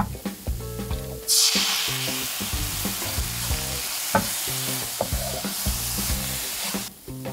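Dried anchovies and garlic sizzling loudly in a hot frying pan while a wooden spatula stirs and scrapes them. The sizzle starts suddenly a little over a second in and cuts off shortly before the end.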